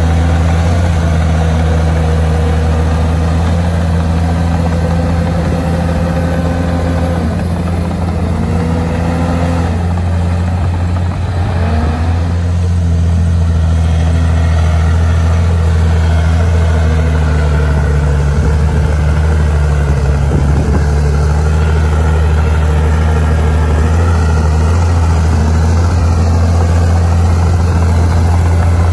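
Komatsu bulldozer's diesel engine running steadily, its note dipping and then climbing back a little before halfway through.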